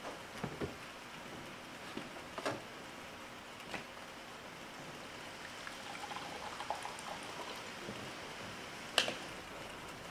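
A small fridge door opened, with a few clicks and knocks as things are handled. Then water trickles from a bottle into a plastic cup, with a sharp click near the end, all over a steady hiss.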